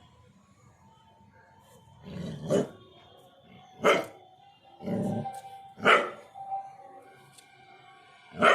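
A dog barking: about five short barks a second or two apart, over faint background music.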